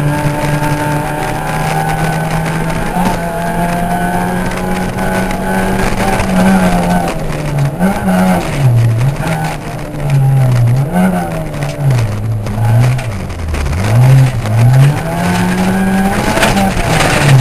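Ford Puma rally car's engine heard from inside the cabin at full load, revs held high for several seconds, then climbing and dropping again and again as the car lifts and accelerates through a run of bends, with gravel and tyre noise underneath.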